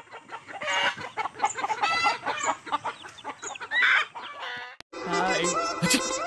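Chickens clucking and a rooster crowing, many short calls overlapping. About five seconds in they cut off abruptly and a different sound follows, made of held pitched tones that step in pitch.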